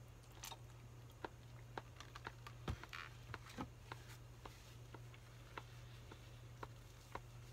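Quiet eating sounds: scattered small clicks of chopsticks against a bowl and soft mouth noises of eating, over a low steady hum.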